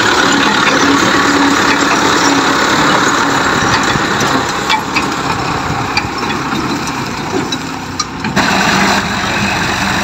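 Fiat 640 tractor's diesel engine running steadily and loud. About eight seconds in, the sound changes abruptly to another tractor engine.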